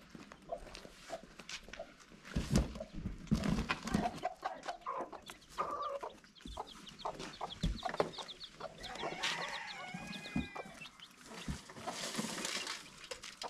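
Chickens clucking, with a drawn-out bending call a little past the middle, over scattered knocks and rustling.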